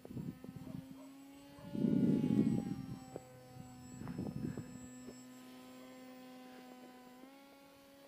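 Electric motor and propeller of a homemade Albatros RC model plane in flight, heard as a steady droning hum with a clear pitch that steps up slightly about seven seconds in. Wind buffets the microphone twice, around two and four seconds in.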